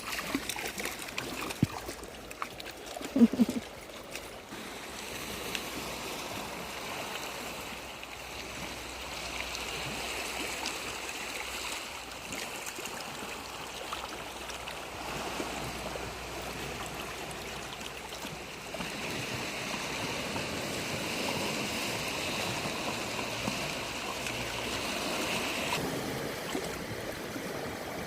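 Small sea waves washing steadily on the beach shore, with a couple of sharp knocks about three seconds in.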